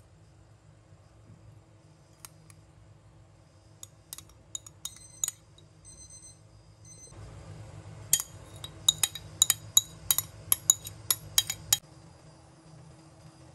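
Metal spoon clinking against a ceramic dish while scraping out and spreading blueberry sauce: a few light clinks that ring briefly about four to five seconds in, then a quick run of about a dozen sharper clinks in the second half.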